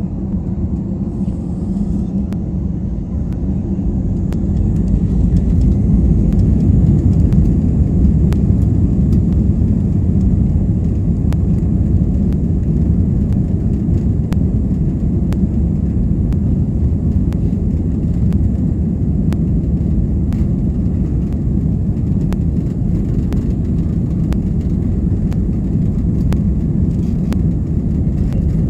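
Airbus A320 heard from inside the cabin on its takeoff roll. The engines spool up to takeoff thrust, and a faint rising whine comes into a low rumble that grows louder about five seconds in and then holds steady. Small knocks and rattles sound throughout.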